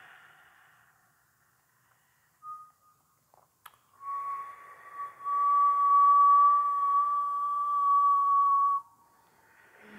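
Whistled breath: a person inhaling slowly through pursed lips so that it whistles, first a brief note, then one steady whistle of about five seconds that stops suddenly. A click comes just before the long whistle.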